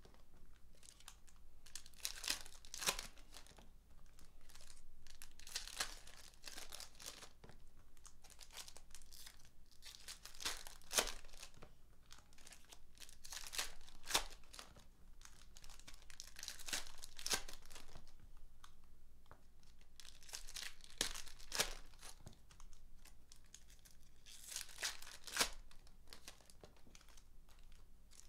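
Foil trading-card packs torn open and their wrappers crinkled, a new burst of crackling every few seconds as one pack follows another, with a few sharp clicks in between.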